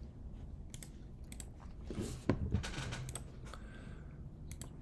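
Scattered clicks from a computer keyboard and mouse, single taps and short clusters of a few in a row.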